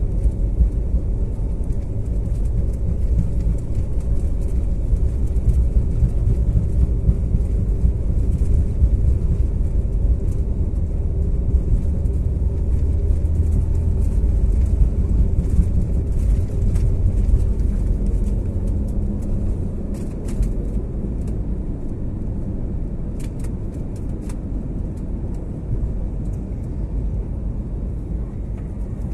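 Airliner engines at takeoff power heard inside the cabin from a window seat, with a heavy low rumble from the wheels on the runway. The rumble eases about two-thirds of the way through as the plane lifts off and the noise settles into a smoother, steady roar. A few light clicks come just after.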